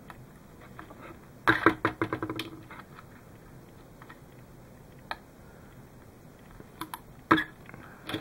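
Small clicks and rattles of a hand tool and wires being handled on a workbench, in a quick cluster about a second and a half in, a single click midway, and a few sharper clicks near the end.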